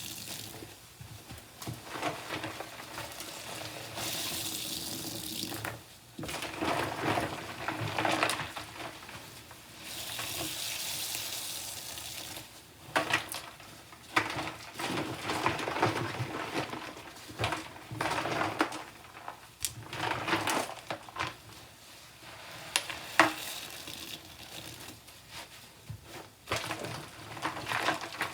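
Soapy sponges being squeezed and rinsed at a sink, with a tap running in steady stretches between wet squelching squeezes and splashes.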